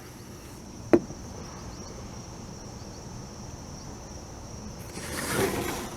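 Crickets chirping in a steady high trill, with a single sharp click about a second in and a rush of noise that swells and fades near the end.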